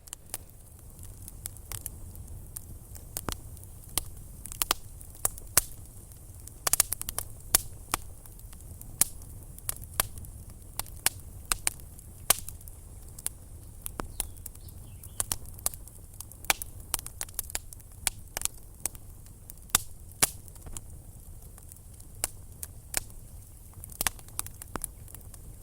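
Small wood fire crackling, with irregular sharp pops a few times a second over a low rumble.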